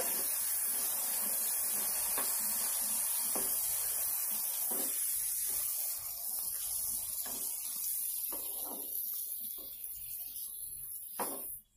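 Freshly added chopped tomatoes and green chillies sizzling in a hot pan, with a wooden spatula knocking and scraping the pan as they are stirred. The sizzle fades from about halfway, and the sound cuts off abruptly just before the end.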